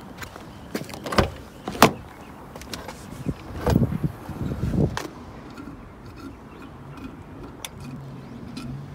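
Infiniti G37 coupe's door being opened: a few sharp clicks and knocks from the handle and latch, then some handling noise.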